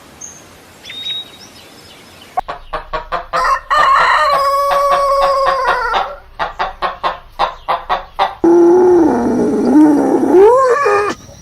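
Chickens clucking in quick short notes, with a rooster crowing in one long held call; a second, lower wavering call follows near the end. The first two seconds are quiet.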